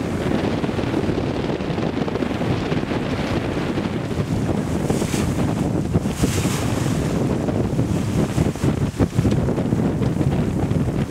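Wind buffeting the microphone over water rushing and splashing along the hull of a Colvic Victor 34 sailboat under way. There are two louder hissing surges of spray about five and six and a half seconds in.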